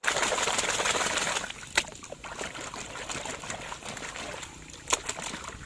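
Water splashing loudly for about a second and a half, then trickling more quietly, with two sharp clicks or knocks, one early and one near the end.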